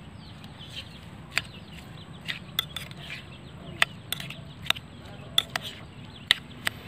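Metal spoon stirring chopped vegetables in a ceramic bowl, with about ten sharp clinks against the bowl at uneven intervals.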